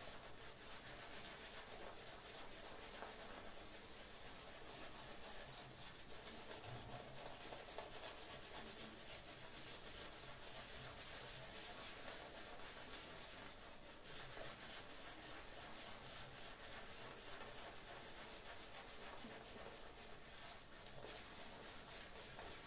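Omega shaving brush face-lathering soap on a stubbled cheek: faint, steady rubbing and swishing of the bristles through the lather.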